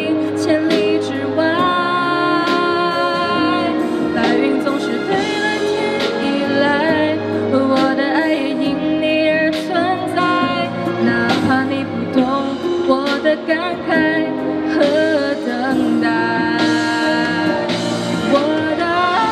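A woman singing into a handheld microphone over instrumental accompaniment, holding long notes with a wavering pitch.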